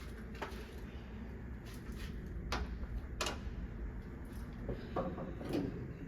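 Sharp metallic clicks and knocks, three clear ones, then a short clatter near the end, as the new hood is worked into place on its hinges and the bolts are fitted.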